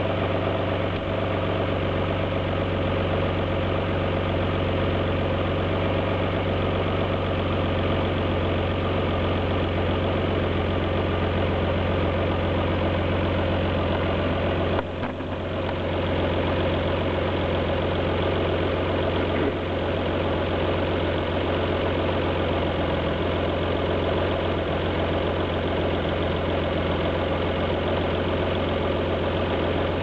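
Alfa Romeo GT's 3.2-litre V6 idling steadily with a misfire. The sound dips briefly about halfway through.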